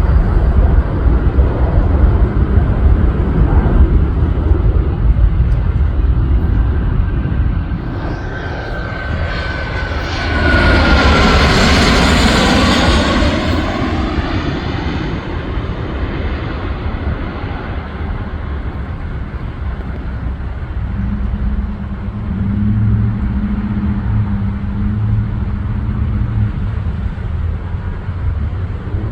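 Jet aircraft passing close overhead, a heavy rumble building to a loud rushing pass about ten seconds in, its whine sliding down in pitch as it goes by, then fading to a lower rumble.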